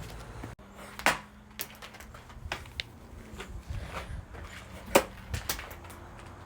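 A few scattered sharp knocks and taps, the loudest about a second in and about five seconds in, over a faint steady hum.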